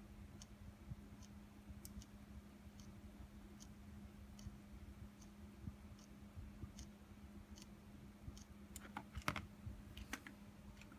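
Small geared DC motor, driven by an L298N motor driver, giving faint short ticks at a steady pace a little more than once a second as it is pulsed for timelapse steps, over a faint steady hum. Near the end come a few louder clicks.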